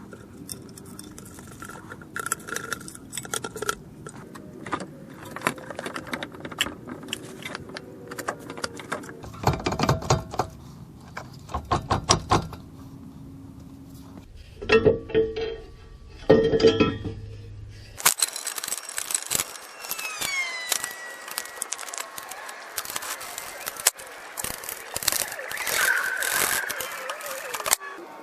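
Irregular metallic clicks and clinks of hand tools and metal parts being handled while working on a car engine, with tighter flurries of clicking in the middle. The background changes abruptly a few times.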